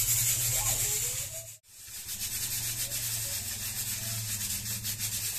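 Steady low hum with a hiss over it, like a running fan or other small motor. It cuts out for an instant about one and a half seconds in, then carries on.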